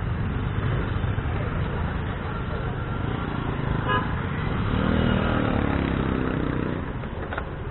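Traffic at a junction heard from a moving motorcycle: engine running with steady road and wind noise, a short vehicle horn toot about four seconds in, and a longer, lower pitched tone a second later.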